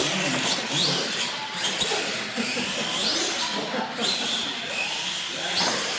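R/C monster trucks' electric motors whining up in pitch several times as they are throttled, with tires bouncing and knocking on the ramps and concrete floor.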